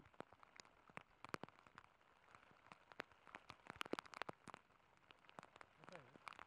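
Faint patter of scattered raindrops, many irregular sharp ticks close to the microphone.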